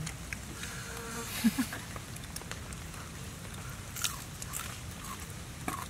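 A man biting and chewing a piece of cooked, charred crocodile meat: scattered sharp clicks and smacks of eating, with a louder bite about one and a half seconds in and another at about four seconds.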